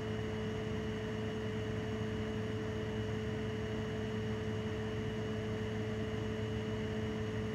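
Steady room hum with a few held low tones over an even hiss, unchanging throughout.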